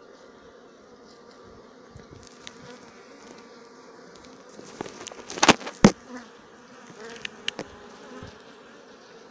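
A colony of Sicilian black honeybees buzzing steadily on a comb frame lifted from the hive, an even hum. A couple of sharp knocks a little past halfway.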